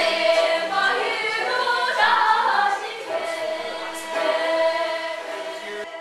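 A group of voices singing together unaccompanied, with long held notes.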